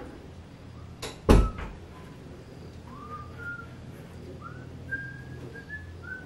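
Two sharp knocks just after a second in, then faint whistling: a few short notes that slide up and hold.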